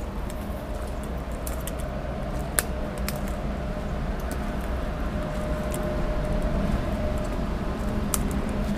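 Footsteps on a muddy path strewn with broken twigs, with scattered sharp snaps and clicks of sticks underfoot over a low steady rumble on the microphone. A faint steady hum comes and goes in the background.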